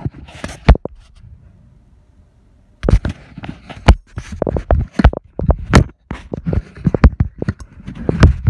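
Rubber stir stick scraping and knocking against the sides of a crock pot's ceramic insert while thick hot-process soap paste at the mashed-potato stage is stirred: a fast, irregular run of clacks and scrapes, with a short lull near the start.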